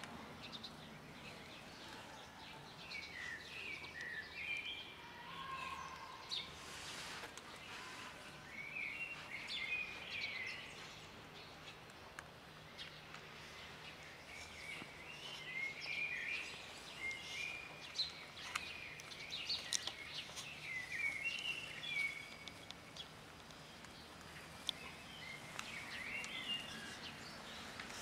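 Small birds chirping in short runs every few seconds, over a faint steady low hum.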